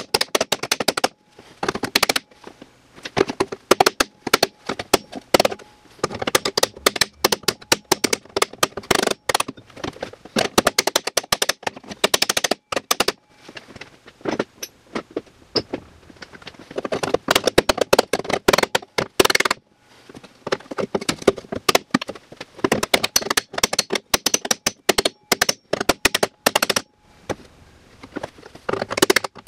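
Ball-peen hammer rapidly striking the bent aluminium bulkhead and tunnel of a snowmobile chassis, with a second hammer held behind the panel as a dolly, straightening the crash damage. The blows are sharp metal-on-metal clanks that come in quick runs of several a second, broken by short pauses.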